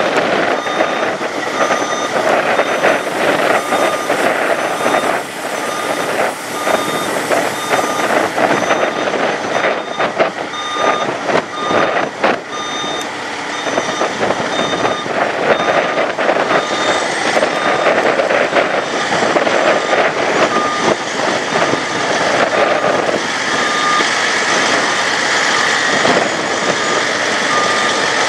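A truck's backup alarm beeps at an even, repeating pace over the loud running of a heavy diesel truck that is moving slowly.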